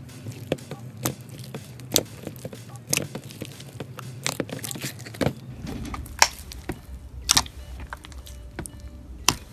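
Hands squeezing and kneading fluffy slime studded with foam beads, giving a steady run of crunchy clicks and pops as the beads and air pockets break, with several louder pops in the second half.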